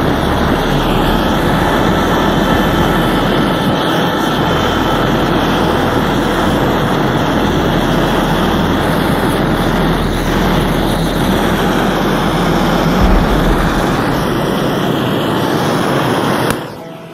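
Handheld gas torch flame jet blowing steadily: a loud, continuous rushing hiss that drops away sharply near the end.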